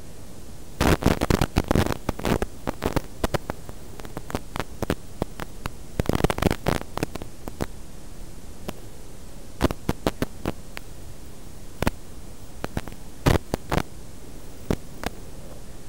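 Steady static hiss from an analog FPV video receiver's audio channel, broken by bursts of crackling, densest about a second in and again around six seconds, with scattered single pops later. The crackles are typical of momentary breakup in the 5.8 GHz video link.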